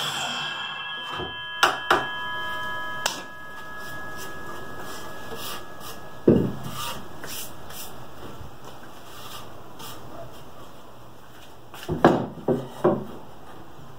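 DeWalt miter saw blade spinning down after a cut, its tone fading over the first few seconds. Pieces of wood are then knocked and set down on the bench and saw table: a few light knocks early, a heavier thump about six seconds in, and a quick cluster of knocks near the end.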